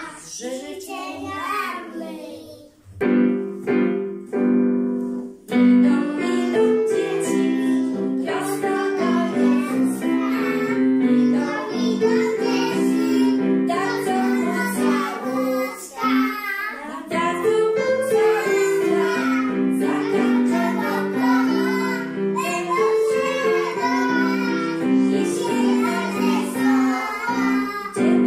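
A group of young children singing a song together, joined about three seconds in by a piano accompaniment that carries on under their singing.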